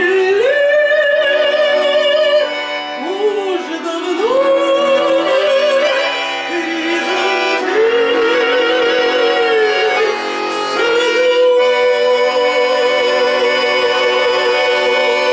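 A Russian romance sung with wide vibrato over an accompaniment of sustained chords. The melody rises and falls in long phrases and ends on a long held note that cuts off abruptly.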